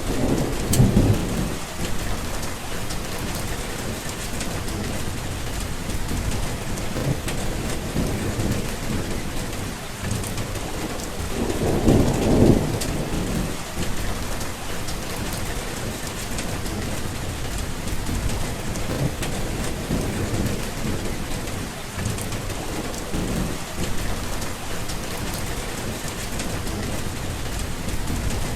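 Steady rain falling, with rolls of thunder rumbling low: a short one at the start and a longer, louder one about twelve seconds in.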